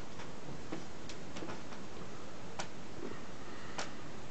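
Light, irregular clicks and clacks from handling a Crosman M4-177 plastic-bodied air rifle, the sharpest about two and a half seconds in and near the end, over a steady hiss.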